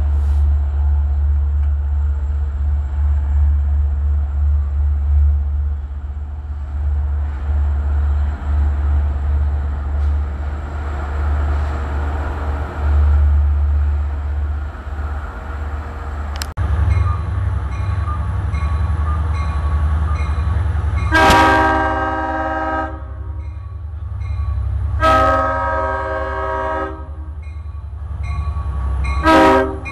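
Low rumble of a passing LIRR diesel train. Then a grade-crossing bell dinging steadily while an approaching DM30AC locomotive sounds its horn for the crossing: two long blasts and a short one.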